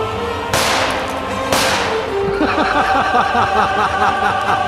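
Two sharp cracks about a second apart, each trailing off in a short hiss, over background music.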